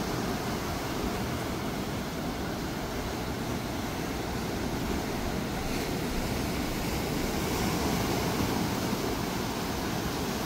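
Steady wash of ocean surf breaking on a sandy beach, with a low rumble underneath.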